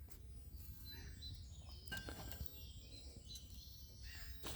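Faint woodland birds chirping in short calls over a low background rumble, with a few light crackles from a small twig-stove fire.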